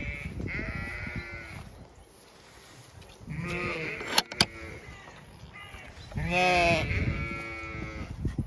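Zwartbles sheep bleating: three calls, one about half a second in, one about three seconds in, and a louder one after six seconds. Just after four seconds a rusty steel barrel bolt on the gate clacks twice as it is worked.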